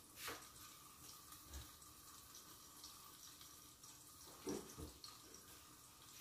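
Near silence: kitchen room tone with a few faint taps, the loudest two close together near the end.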